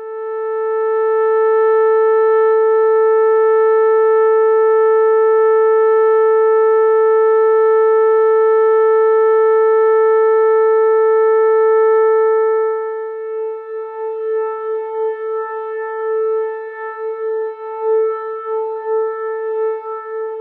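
Minimalist drone music: a single sustained pitched tone with overtones swells in and is held steady. About two-thirds of the way through it turns quieter and starts to waver and pulse.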